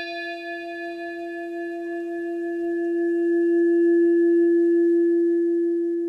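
A single bell-like tone rings on after being struck. It is one strong steady low note with fainter higher overtones that die away; the note swells about halfway through and begins to fade near the end.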